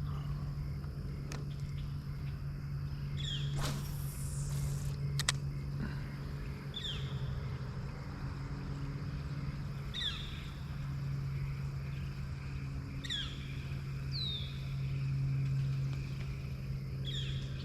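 A steady low hum, with a bird repeating a short falling call every few seconds.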